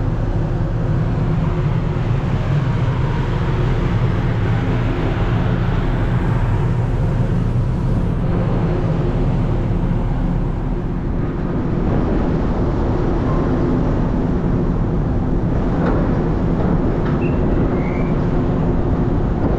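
Steady low drone of the car ferry Sunflower's machinery running at the pier before departure, with several steady hum tones and a constant rush over them.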